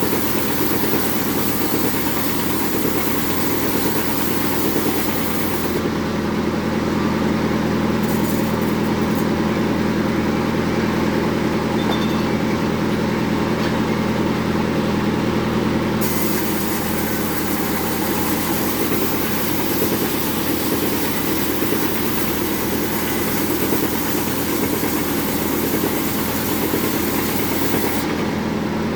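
Bandsaw mill running steadily while ripping jengkol wood, with a constant low machine hum. The sharper, hissier part of the sound drops away about six seconds in and returns about ten seconds later.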